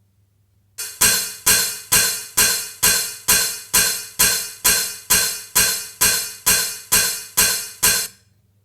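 Electronic track intro: a bright, cymbal-like percussion hit repeated steadily about twice a second, each one fading out before the next. It starts about a second in and stops shortly before the full beat comes in.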